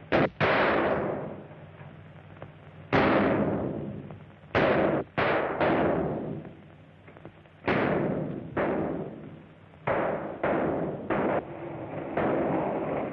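Exchange of gunfire: about a dozen sharp shots at uneven intervals, some in quick pairs, each followed by a long echoing decay.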